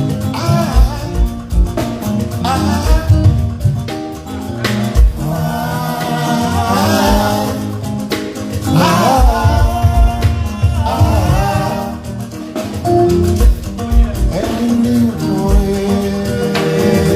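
A band playing a song, with a singer's voice over sustained instrumental notes and low drum hits.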